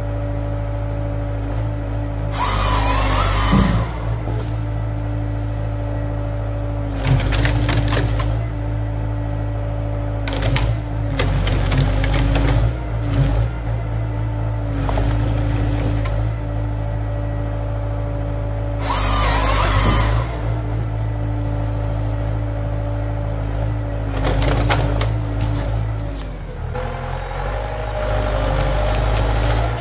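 Tractor-mounted Hypro 755 harvester processor at work, the tractor engine and hydraulics running steadily. Two longer loud cuts through a log, about 2.5 s in and about 19 s in, with shorter bursts of wood cracking and splintering between them as logs are fed and delimbed.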